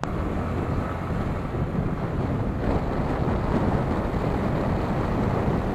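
Wind buffeting the on-bike camera's microphone at riding speed, mixed with the running single-cylinder engine of a Yamaha R15 V3 sport bike and road noise: a steady, dense rumble.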